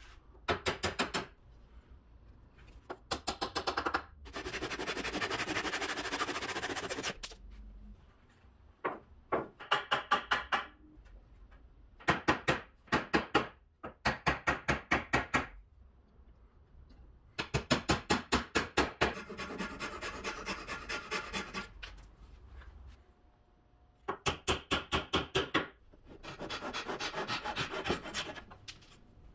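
A ball-peen hammer tapping wooden dowels into holes in a wooden frame, in about six short runs of quick, light strikes. Between them come three longer stretches of a hand saw cutting the protruding dowel ends flush, in steady sawing strokes.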